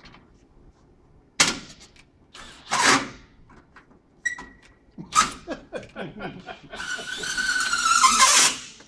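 Hardware and panel parts clicking and knocking, then a power driver running for about a second and a half near the end, its whine dropping in pitch as it draws the connector's rod tight before stopping.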